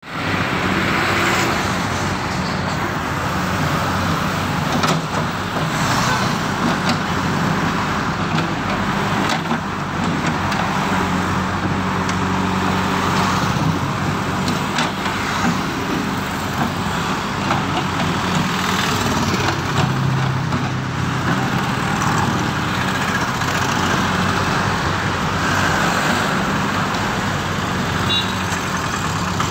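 Road traffic passing close by (cars, scooters and an auto-rickshaw), with the steady running of a JCB backhoe loader's diesel engine underneath.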